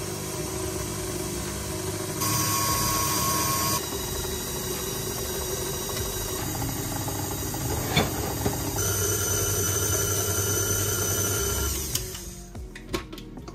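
KitchenAid stand mixer running with its dough hook, kneading flour into a dough: a steady motor whine with gear noise. The whine steps up and down in pitch a few times and stops near the end.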